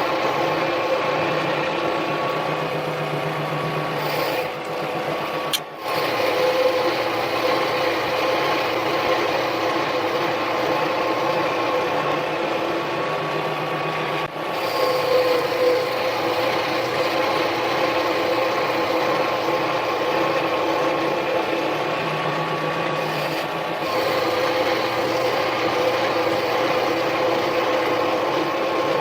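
Harbor Freight mini lathe running steadily with a constant mechanical whine while facing the end of a 1-inch 1018 cold-rolled steel shaft. The sound dips briefly twice.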